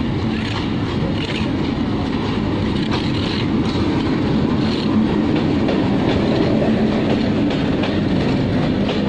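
WDM-3A diesel-electric locomotive running as it hauls a passenger train past, its ALCO 16-cylinder engine's low drone growing gradually louder as it draws level, with the wheels clicking over rail joints as the coaches roll by.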